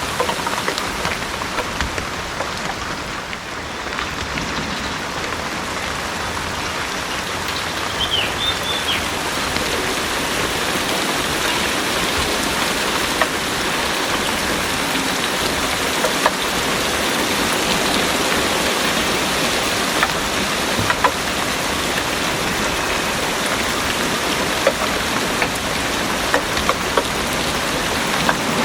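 Heavy rain pouring steadily, a dense even hiss with scattered sharp taps of single drops striking close by.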